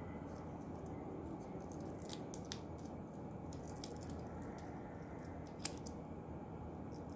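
Light clicks and taps of small parts being handled, with one sharper click near the end, over a steady low hum.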